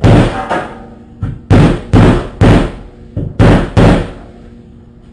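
Hammer blows: about six heavy strikes, mostly in pairs, with a couple of lighter taps between them, banging a part of an old refrigerator flush.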